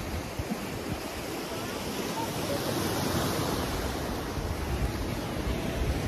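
Ocean waves breaking, a steady wash of surf, with wind rumbling on the microphone.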